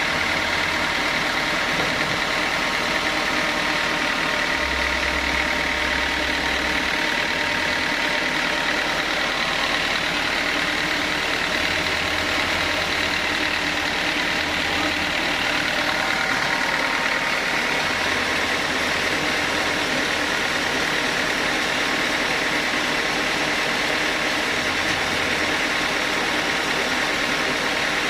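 Sawmill machinery running steadily, a constant machine drone with a steady high whine and no pauses.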